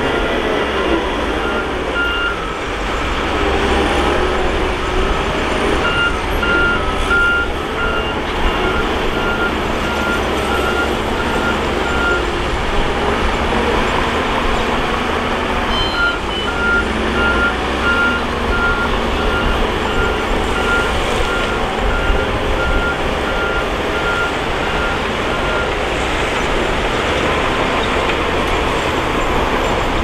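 Bulldozer diesel engine running steadily, with a reversing alarm beeping about twice a second in spells that stop and start.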